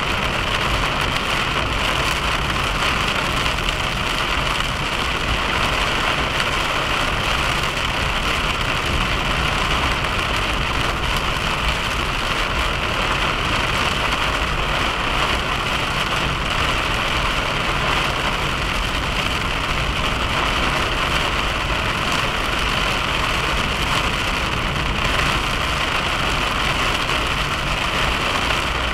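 Steady driving noise heard inside a moving car: an even hiss of tyres and air over a low engine and road rumble.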